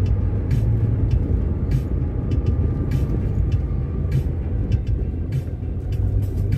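Steady low rumble of a car's engine and tyres on concrete pavement, heard from inside the cabin while cruising, with short light ticks scattered through it.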